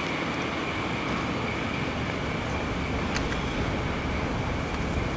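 Two coupled ND552 diesel locomotives running away down the line, a low rumble over steady outdoor noise. A thin, steady high-pitched drone sits above it, and there is a single sharp click about three seconds in.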